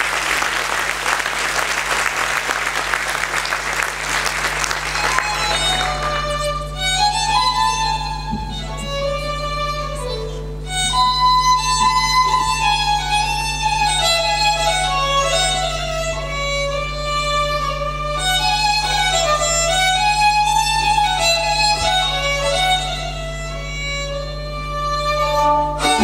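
Audience applause for about the first five seconds, then a Slovak folk string band starts playing, a fiddle leading the melody over double bass and cimbalom.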